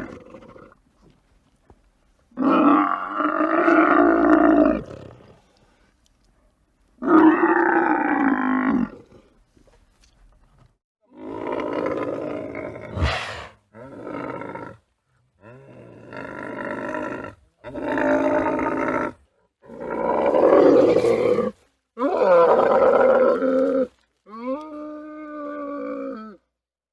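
Camel calling in a series of about nine separate drawn-out calls, each one to three seconds long, with short pauses between. There is a sharp click about halfway through, and the last call has a clearer, falling pitch.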